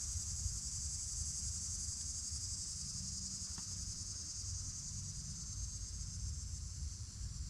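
A steady, high-pitched insect chorus, like crickets, that eases slightly near the end, over a low rumble.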